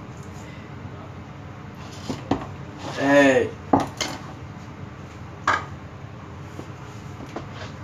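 Sharp knocks and clatter of kitchen things on a counter as a wooden mortar is handled and set down on a plastic cutting board. A brief pitched vocal sound, rising then falling, about three seconds in, is the loudest thing.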